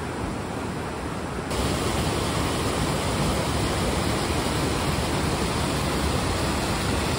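Mountain stream rushing over boulders in white-water rapids, a steady hiss. It grows brighter and a little louder about a second and a half in.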